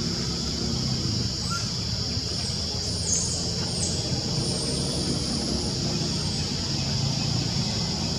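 Outdoor ambience: a steady high insect drone over a low rumble, with short high bird chirps about three seconds in and again about five seconds in.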